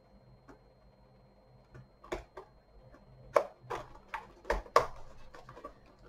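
Cardboard advent-calendar packaging being opened and handled by hand: scattered short clicks and taps, sparse at first and more frequent and louder in the second half.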